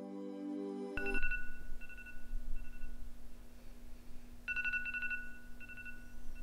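Smartphone alarm beeping: short high two-pitched beeps in a repeating pattern, with denser clusters about a second in and again past the middle, over a low steady hum. Soft ambient music cuts off about a second in, as the alarm starts.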